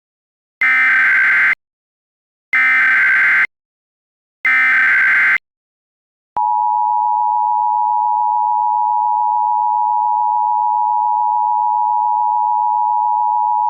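Emergency Alert System tones for a practice/demo (DMO) warning. First come three harsh, buzzy bursts of SAME digital header data, each about a second long with a second's gap between them. About six seconds in, the steady two-tone EAS attention signal starts and holds unbroken.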